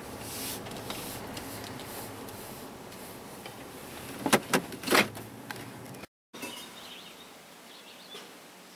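Steady rumble inside a pickup truck's cabin as it rolls in and stops, with two sharp clunks about four and a half and five seconds in. After a brief cut the sound turns quieter, with birds chirping faintly.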